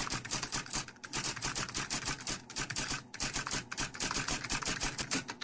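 Typewriter sound effect: rapid keystrokes clacking at about ten a second, with two brief pauses.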